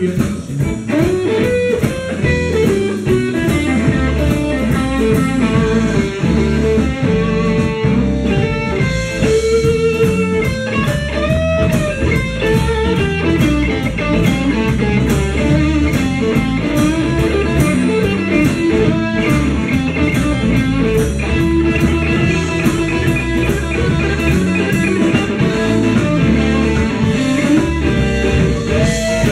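Live blues band playing: a guitar lead with gliding, bending notes over bass and drums.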